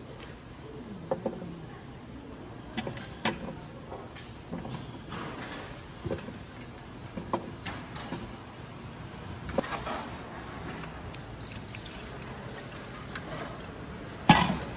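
Scattered knocks and clatter of food preparation at a market food stall, irregular and spaced a second or more apart, over a steady background hum, with one loud knock near the end.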